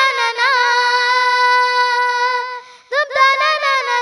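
A young girl singing in a high, clear voice: long held notes with quick ornamental turns. She breaks off for about half a second near the three-second mark, then starts a new phrase.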